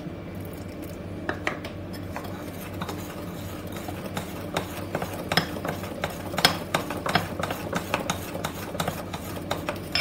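Metal spoon stirring a thick milk-powder batter in a glass bowl, clinking and scraping against the glass in quick irregular taps that grow busier about halfway through.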